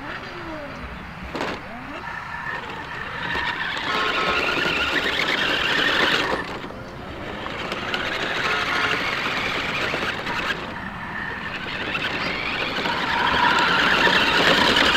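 Electric drive motor and gears of a radio-controlled toy car whining as it drives across dirt and grass, rising and falling with the throttle.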